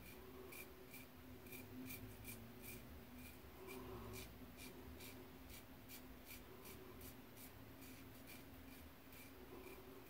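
Muhle R41 double-edge safety razor with an Astra SP blade scraping through lathered stubble on the chin and jaw. The strokes are short, faint and quick, about two to three a second, during the first with-the-grain pass.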